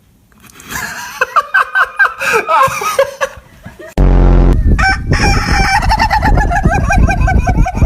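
Chickens calling: drawn-out, squawking crow-like calls for about three seconds. After an abrupt cut about halfway through comes a fast run of repeated clucks and squawks over heavy low rumbling noise.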